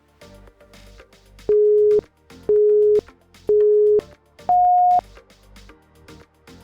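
Workout interval-timer countdown: three short beeps a second apart, then one higher beep, the usual signal to switch to the next exercise. Beneath them runs background electronic music with a steady beat.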